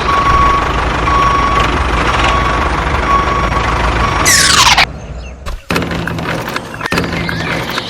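A heavy vehicle's engine runs steadily while a reversing beep repeats roughly once a second. Just before the middle a quick falling sweep cuts it off, and a quieter steady hum with scattered clicks follows.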